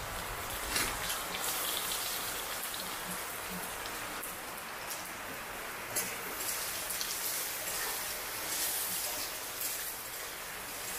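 Chopped onions and bay leaves sizzling in hot oil in a metal kadai, a steady frying hiss. A metal spatula stirs them, with a few sharp clicks and scrapes against the pan.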